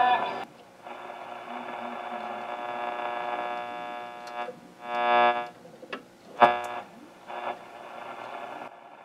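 RCA R35 tube radio playing through its speaker with a distorted squeal and buzz of steady whistling tones, rising into louder bursts about five and six and a half seconds in. The squealing comes in part from the tubes and coils having no shielding.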